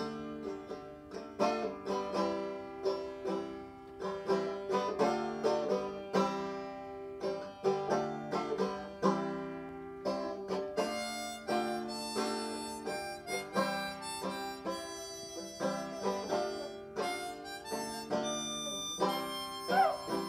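Banjo and harmonica playing a tune together: plucked banjo notes throughout, with held harmonica notes over them. Just before the end, an Australian cattle dog starts to howl along with a wavering, gliding note.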